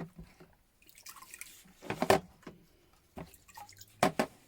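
Liquid dripping and splashing in a few separate splashes, the loudest about two seconds in and another near the end.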